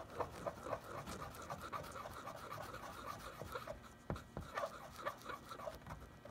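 Fine sandpaper glued to the end of a pencil, rubbed quickly back and forth in a rusted paint chip on a truck body: a soft, rhythmic scratching of about four strokes a second. The sanding scours out rust down to bare metal and flattens the edge of the surrounding paint.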